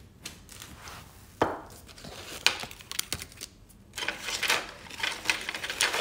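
Small nail-art items being handled and set down on a tabletop: a few separate clicks, then a quick run of clicking and rattling near the end.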